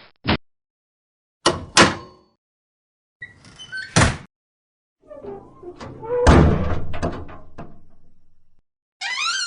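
A run of separate door-closing sound effects. There is a short click, then a double knock-and-thud, then a rattle ending in a shut. The loudest is a heavy door slam with an echo that fades over about two seconds. Near the end a door hinge starts to creak, rising in pitch.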